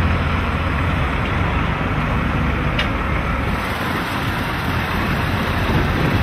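Semi truck diesel engines rumbling steadily as the big rigs roll slowly past at low speed.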